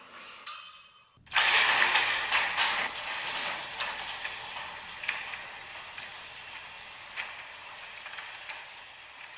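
Garage door opener running a door down: a sudden start of mechanical rattling about a second in, with scattered clicks and knocks, getting gradually quieter.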